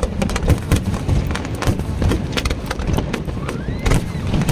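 Fireworks going off: a dense run of sharp, irregular crackling pops over a steady low rumble.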